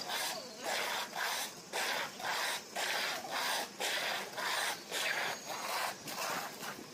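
A broad steel trowel scraping back and forth through wet cement slurry on clay roof tiles, working it into the tile joints. The scraping comes in rhythmic strokes, about three every two seconds.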